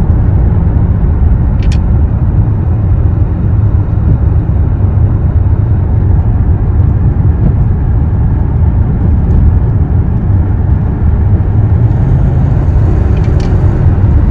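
Mercedes-Benz E55 AMG (W210) on the move: a steady low rumble of its 5.4-litre V8 mixed with road noise.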